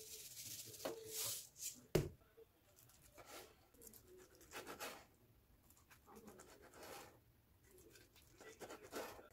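A kitchen knife slicing through a rolled omelette onto a wooden cutting board, in soft separate cutting strokes about a second apart. It opens with a brief hiss and a single sharp knock about two seconds in.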